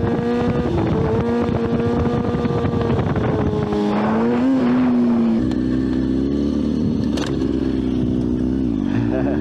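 Motorcycle engine running at steady revs, dropping to lower revs about five and a half seconds in, then dipping and starting to rise again at the end, over rumbling wind noise.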